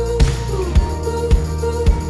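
Background music with a steady beat, a little under two beats a second, under held melodic notes.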